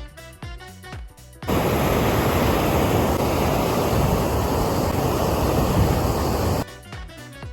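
A short burst of music with falling tones, then the steady rush of a fast-flowing, swollen river for about five seconds; the music returns near the end.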